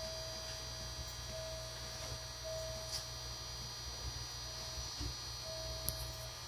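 A standing electric train's onboard electrical equipment humming steadily, heard from inside the car, with a steady high whine over it and a mid-pitched tone that keeps cutting in and out.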